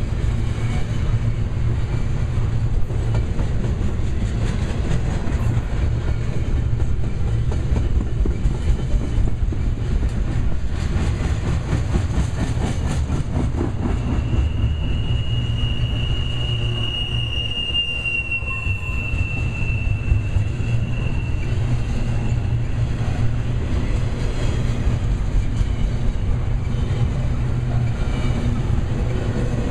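Double-stack container well cars rolling past close by: a steady rumble of steel wheels on rail with clacking from the wheels. About halfway through, a high wheel squeal holds for several seconds, sinking slightly in pitch.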